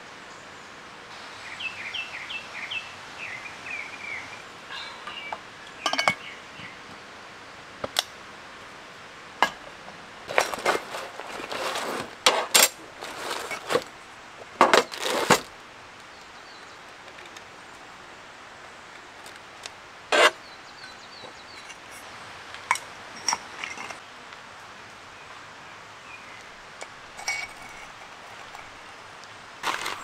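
Camp gear being handled on a metal camp table: scattered clinks and knocks, with a busy stretch of handling noise in the middle.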